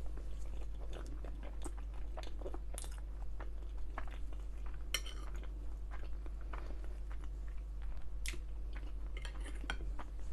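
A person chewing food close to the microphone, with scattered wet mouth clicks and some crunching.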